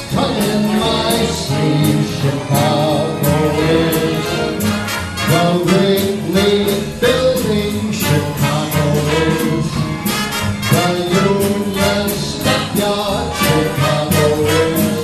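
Big band of saxophones, brass, drums and upright bass playing a swing arrangement, with steady drum and cymbal hits under the horn lines.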